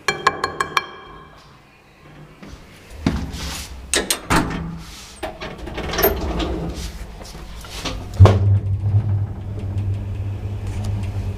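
Passenger lift in an apartment building: a quick run of short electronic beeps, then the doors sliding and knocking shut. About eight seconds in, the car sets off with a sudden steady low hum from its drive as it travels.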